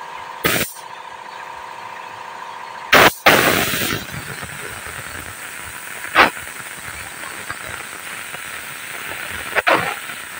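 Compressed-air paint spray gun hissing as top coat is sprayed onto a truck cab roof, with several short, louder blasts of air as the trigger is pulled. A steady hum stops about three seconds in.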